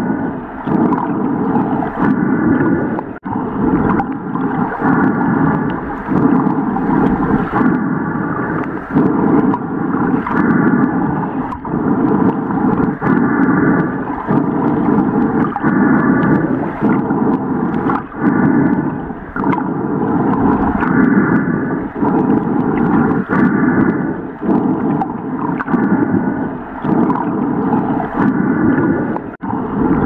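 Underwater ambience sound effect: a dense, gurgling rush of water, with short pitched calls recurring every second or two.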